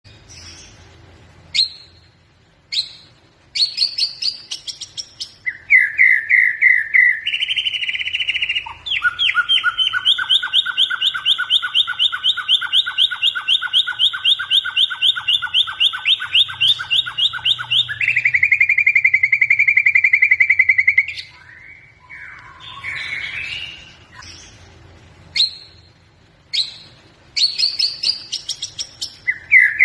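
White-rumped shama (murai batu) singing in full voice: a varied song of short whistled notes and long, rapid trilled phrases, with a brief lull about three-quarters of the way through before the song starts again.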